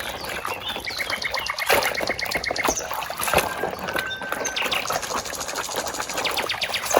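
Water sloshing and splashing as a muddy toy is washed by hand in a container of water, with irregular handling knocks. Rapid high-pitched trills sound in the background, one about a second in and another near the end.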